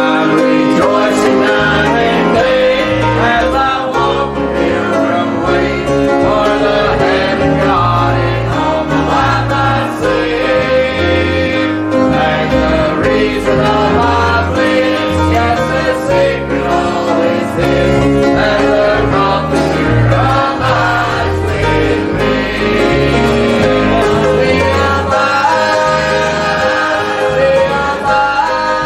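Gospel music: voices singing together over instrumental accompaniment with a steady bass line.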